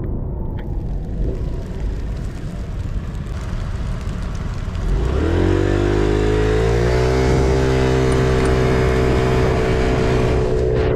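Aprilia SXR50 scooter engine: a low, rough rumble, then about five seconds in its pitch climbs sharply as it pulls away and holds steady as it runs on at speed.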